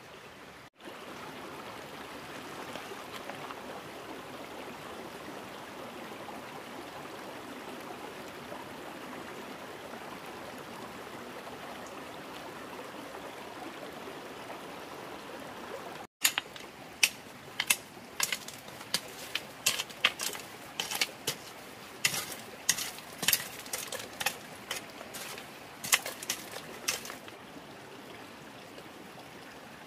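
Steady rushing of running water. After a cut, about two dozen sharp, irregular knocks come roughly two a second over the water sound, then stop.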